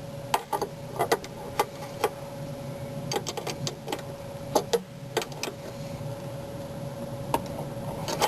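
Scattered light metallic clicks and taps, some in quick little clusters, as a second nut is threaded and tightened with a wrench onto the top shaft of a rear shock absorber, over a faint steady hum.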